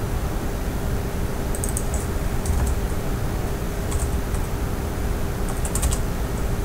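Computer keyboard being typed on in a few short clusters of keystrokes, over a steady background hiss with a faint hum.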